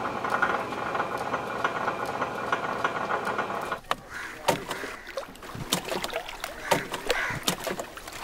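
A steady even background sound for about four seconds. Then wet slaps, knocks and clicks of freshly caught fish being handled and sorted by hand in a round boat at the water's edge.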